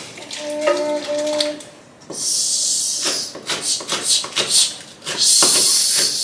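Kitchen knife chopping green onions on a wooden cutting board: a quick irregular run of taps in the middle, between two bursts of high hiss. A short pitched voice sounds about a second in.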